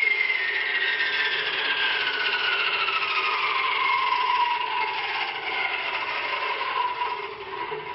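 Electric wall chaser (wall-slot cutting saw) spinning down after being switched off, its motor whine falling steadily in pitch over several seconds and fading near the end.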